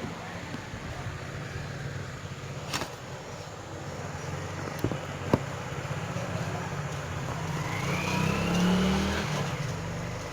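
A motor vehicle's engine running close by, growing louder about eight seconds in as it passes, with a faint rising whine. A few sharp clicks come about three and five seconds in.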